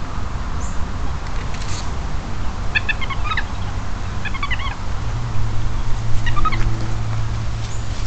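Short, high chirping animal calls in three quick clusters, over a steady low rumble and hiss.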